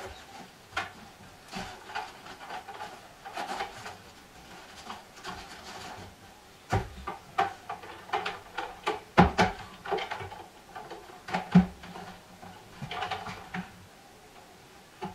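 Heavy rubber-insulated welding cables and an electrode holder being handled: rubbing and rustling, with irregular knocks and clacks as they are set down on the welder's housing and the bench. The louder knocks come in the middle of the stretch.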